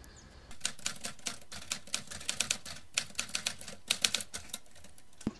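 Typewriter keys clacking in quick, irregular strokes: a typing sound effect laid over on-screen text being typed out letter by letter. The clicks start about half a second in and stop shortly before the end.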